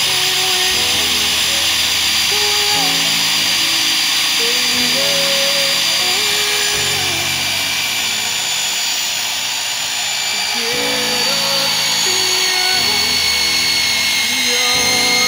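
Electric diamond core drill whining steadily as its core bit bores a hole into a concrete slab, the whine dropping slightly in pitch about two-thirds of the way in and rising again near the end. Background music with a melody plays over it.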